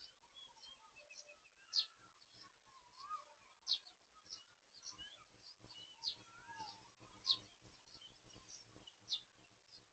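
Several birds calling: a sharp, high chirp repeats about every one and a half to two seconds, with softer whistled notes that slide up and down in between.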